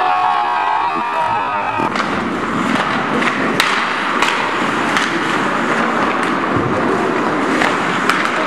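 Ice hockey play on the rink: skates scraping across the ice with sharp, irregular clacks of sticks and puck, starting about two seconds in.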